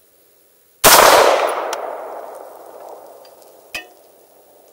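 A single shot from a 20-inch AR-15 rifle in 5.56 NATO, about a second in, with its echo fading away over the next two seconds or so. A short sharp click follows near the end.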